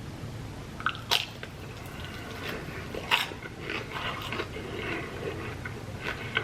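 A person biting into and chewing a crisp fried egg roll close to the microphone: two sharp crunches, about a second in and about three seconds in, with softer crackly, wet chewing between.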